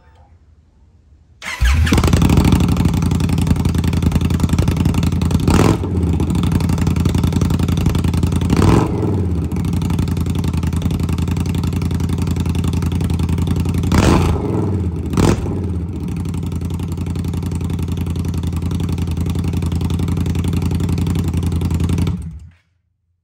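Indian Scout Rogue V-twin on GP Shorty slip-on exhausts with the baffles removed, starting about a second and a half in. It idles, is blipped four times with quick throttle revs, and is shut off just before the end. Extremely loud.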